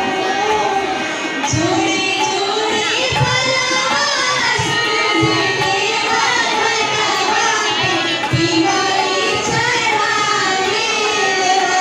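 A girl singing a Chhath devotional song into a microphone, accompanied by a harmonium and a hand drum beating about once a second.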